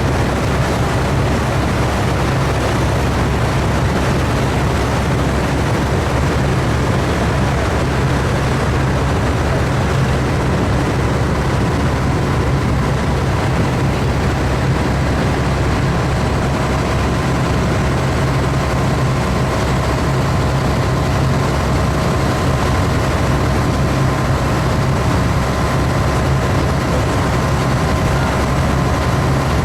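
An engine running steadily with a low drone that does not change.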